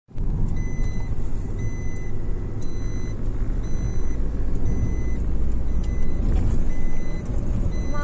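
Car driving along a road, its engine and tyre rumble heard from inside the cabin, with an in-car warning chime beeping steadily about once a second.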